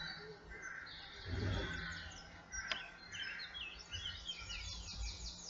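Several garden birds singing, a busy mix of short, quick, high chirps and trills. There is a faint steady low hum underneath and a brief low rumble about a second in.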